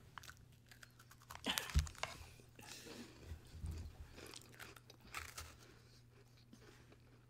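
Crunchy chocolate-cream sandwich biscuits being bitten and chewed: scattered crisp crunches, the loudest about a second and a half in.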